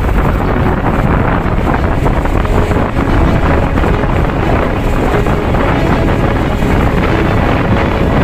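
Strong wind buffeting the microphone, with surf breaking on the shore beneath it in a continuous loud rush.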